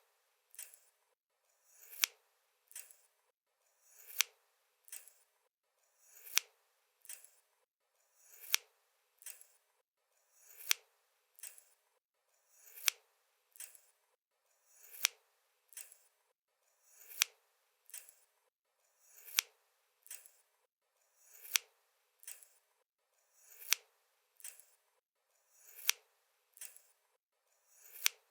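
A pair of scissors opening and closing in a slow, even rhythm. About every two seconds there is a sharp snip, with a quieter click between the snips.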